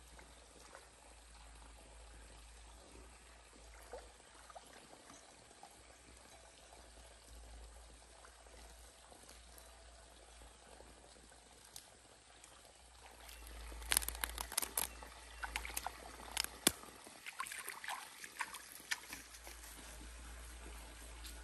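Shallow stream trickling faintly, then for several seconds a run of sharp splashes and sloshing as someone wades and works with their hands in the water.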